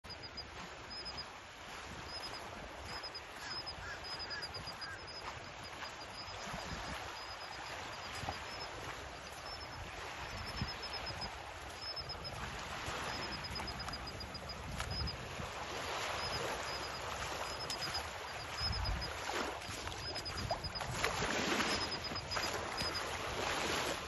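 A flock of gulls calling in many short, high, repeated notes over the steady wash of small waves on the shore. The water gets louder in the last few seconds.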